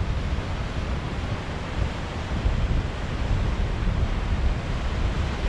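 Sea surf washing over rocks along the shore, with wind buffeting the microphone.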